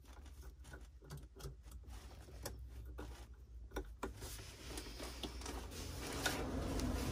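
Light clicks and taps of hands working a plastic weed-guard cover onto a baitboat's propeller housing. From about halfway, a scraping and rubbing grows louder as the stiff-fitting cover is pushed on.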